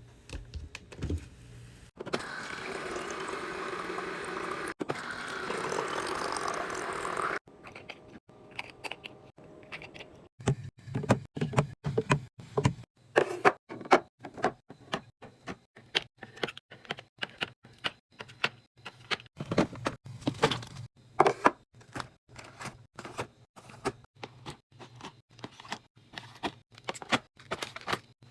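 A mini fridge being restocked by hand: after a steady hissing noise lasting about five seconds, a long run of quick clicks, knocks and clinks as items and packaging are handled and set in place.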